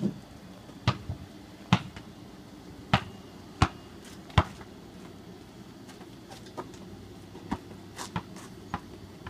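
Basketball bouncing on an asphalt driveway as it is dribbled: sharp separate bounces at uneven intervals, loud through the first half, then fainter ones near the end.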